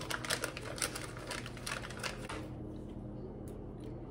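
Rapid dry crackling and clicking of chopped nuts being handled and crumbled between fingers. It thins out to a few scattered clicks after about two seconds.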